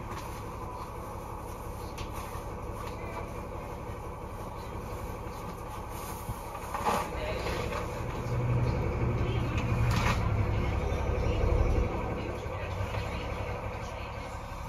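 Inside a 2001 Nova LFS city bus under way: its Cummins ISC diesel engine and road noise rumble steadily, the rumble growing louder from about eight seconds in as the bus pulls harder, then easing off. A couple of short knocks or rattles come through near the middle.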